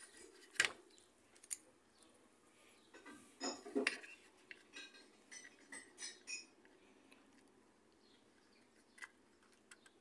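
Small plastic and metal parts of a washing-machine timer clicking and clinking as they are handled and fitted together by hand. The clicks are light and scattered, with a denser run of them in the middle.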